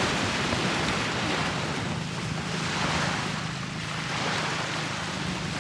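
Small waves washing onto a sandy beach: a steady rushing surf that swells and eases every couple of seconds.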